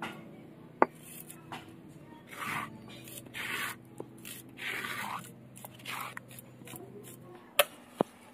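Grinding stone (sil-nora) being scraped: the stone pestle is drawn across the flat stone in about five short strokes, gathering up the wet ground mustard-and-chilli paste. A few sharp clicks, two close together near the end, over a faint steady hum.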